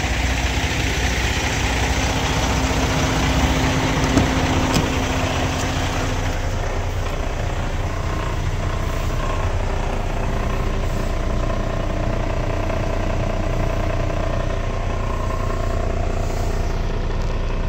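Cummins X15 diesel engine of a 2020 Kenworth T880, recently given an in-frame overhaul, idling steadily. It is heard first from beside the truck and then from inside the cab, with a couple of brief clicks about four seconds in.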